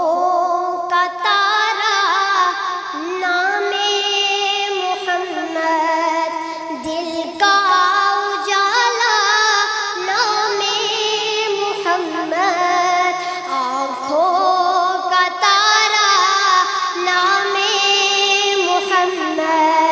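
A naat, an Urdu devotional song in praise of the Prophet Muhammad, sung by a high voice with wavering, ornamented pitch and layered vocal parts.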